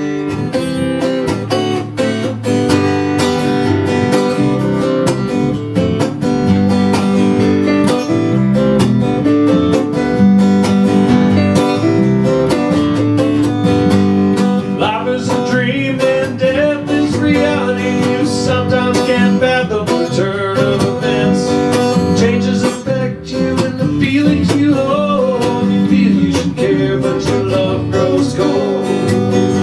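Acoustic guitar music: strummed chords running steadily, with higher notes that bend and waver over them through the middle.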